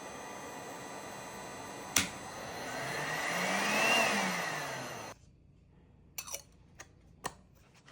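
INGCO HGLI2006 heat gun's fan running with a steady whir. A sharp click comes about two seconds in, then the sound swells, with a tone that rises and falls, before it cuts off suddenly about five seconds in. A few small clicks follow.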